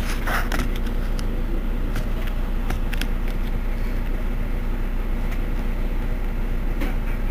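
Mercedes-Benz Citaro C2 city bus idling at a standstill: a steady low engine drone from its rear-mounted engine, with a few faint clicks in the first few seconds.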